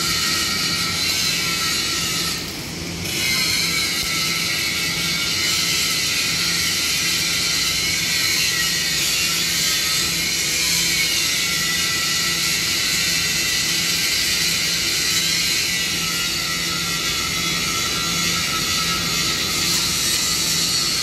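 MIG welding arc running as a steady crackling hiss while a bead is laid on a steel beam. It stops for under a second about two and a half seconds in, then strikes again and runs on.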